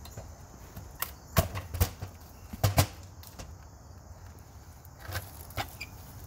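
Old wood-framed basement window being worked loose and pulled out of its brick opening by hand: a handful of sharp wooden knocks and clatters, a cluster in the first half and a couple more near the end.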